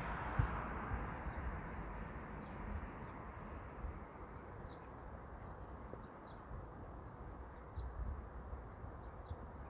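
A KTX-Eum train's passing noise fades away over the first couple of seconds. Scattered short, high bird chirps follow over a low steady rumble.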